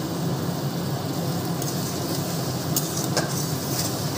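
Onion-and-spice masala, just wetted with water, sizzling and bubbling in a metal kadai over a steady low hum. From about halfway through, a metal spatula scrapes and clicks against the pan a few times as the masala is stirred.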